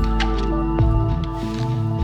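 Background music: a mellow instrumental track with sustained tones, a bass line and a steady beat.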